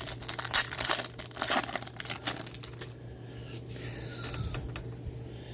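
Foil wrapper of a baseball card pack being torn open and crinkled: dense crackling for about three seconds, then quieter rustling as the cards are handled.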